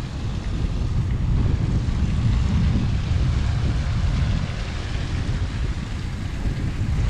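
Wind buffeting the camera's microphone, a steady low rumble.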